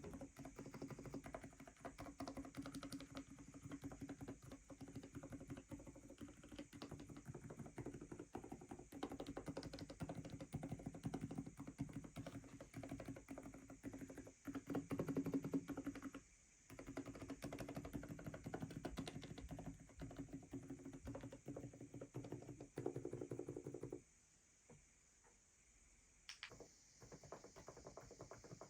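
Fast, steady typing on an Aula F87 Pro mechanical keyboard with silent linear switches, soft dense keystrokes that stop about four seconds before the end, followed by a few last key presses.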